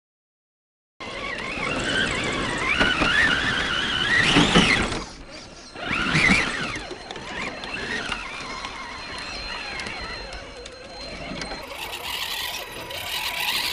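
Electric motors and geared drivetrains of RC scale crawlers whining as they climb, the pitch rising and falling with the throttle. It starts after about a second of silence and is loudest in two bursts, around four and a half and six seconds in.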